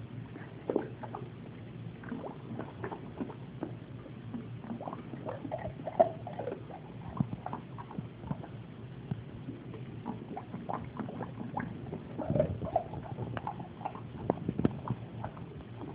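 A pit bull lapping and nosing for ice cubes in a glass bowl of water: irregular wet laps and splashes with short clicks of ice in the bowl, a louder splash about six seconds in and a busier stretch a couple of seconds before the end.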